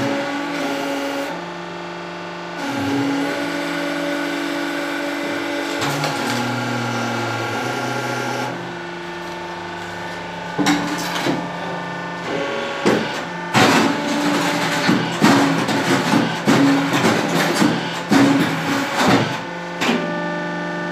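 Hydraulic brick-making press running with a steady hum that changes pitch a few times. From about ten seconds in there are repeated irregular clattering knocks of the wooden pallet board and the steel mould being worked.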